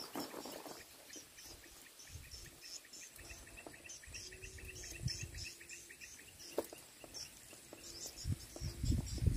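Insects chirping in quick repeated high pulses, with a few soft low thumps and a sharp click about two-thirds of the way through.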